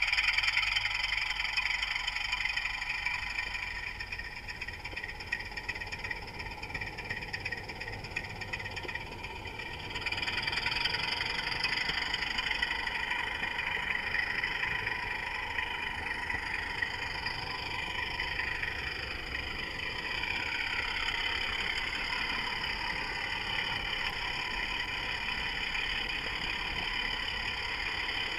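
Model Class 24 diesel locomotive running along the layout track, a steady mechanical hum with a whining tone that gets louder about ten seconds in and shifts pitch a few times later on.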